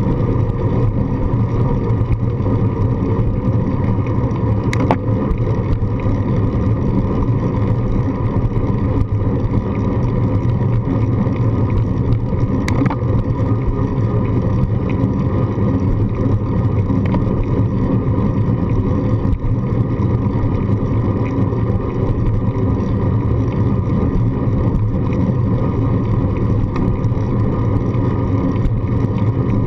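Steady wind and road rumble from a bicycle rolling along a paved path, heard through a handlebar-mounted GoPro, with a low, constant drone and two brief clicks.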